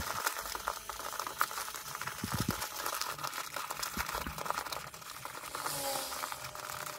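Stiff printed faux-leather bag being turned right side out by hand: irregular crinkling and rustling of the material, with scattered soft knocks.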